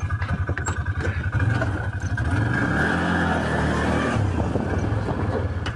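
Heavy military vehicle's engine running with a steady low pulsing beat; the engine note rises and thickens about a second and a half in and drops back about four seconds in.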